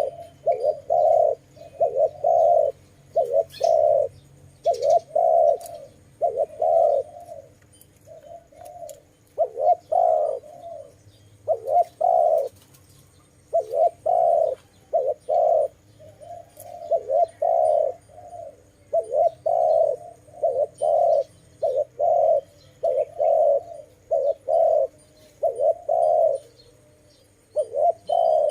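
Dove cooing over and over: a steady string of short low coo notes in groups of two to four with brief gaps between them.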